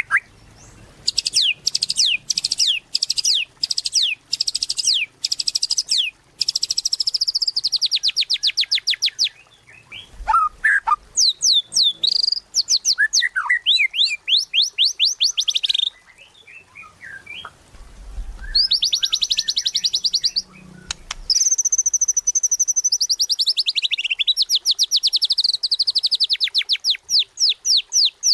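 White-rumped shama singing in long, fast trills of rapidly repeated high notes, mixed with a few short whistled notes. The trills come in bursts with brief pauses between them.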